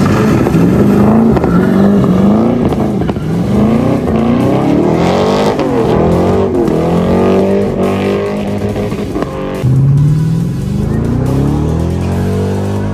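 Chevrolet C5 Corvette's V8 revving hard as the car drives by, its pitch repeatedly climbing and dropping back. About ten seconds in it gets louder again with a fresh rise in pitch.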